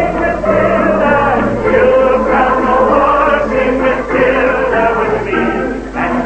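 A man singing into a microphone with a band accompanying him and a studio audience singing along in chorus.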